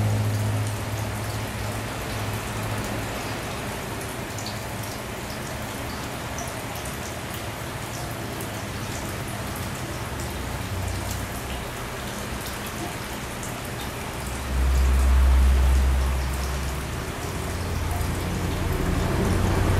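Steady splashing and trickling of aquarium water, a fine rain-like patter, with a low rumble swelling for about two seconds around fifteen seconds in.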